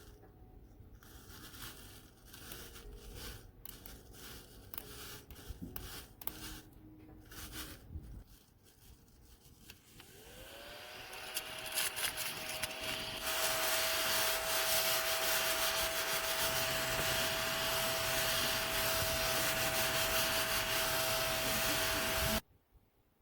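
Handling clicks and rubbing, then a battery-powered mini desktop vacuum cleaner starting up. Its small motor's whine rises and levels off under a loud rush of air as it runs, then cuts off suddenly when it is switched off.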